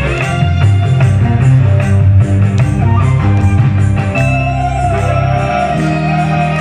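Live band playing an instrumental passage with no singing, with guitar, violins and keyboard over a strong bass line; a long held melody note stands out in the last few seconds.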